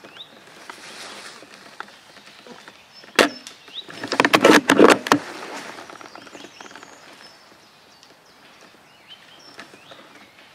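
Airsoft gunfire: a single sharp crack about three seconds in, then a string of rapid clicks and rattles lasting about a second.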